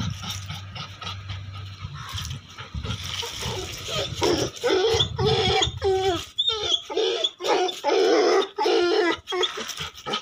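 Rottweiler whining and yipping in many short calls that bend up and down in pitch, coming thick and fast from about four seconds in. Before that there is a low rumble.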